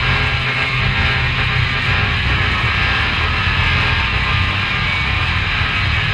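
Heavily distorted music: a steady, dense wall of noise over a choppy low rumble, with no breaks.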